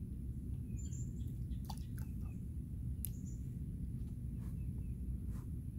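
A steady low background rumble with a few short, high bird chirps and some faint clicks scattered through it.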